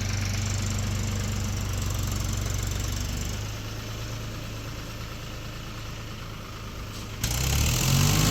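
An engine idling with a steady low hum that drops in level about three seconds in. Near the end a louder engine sound cuts in abruptly, its pitch rising.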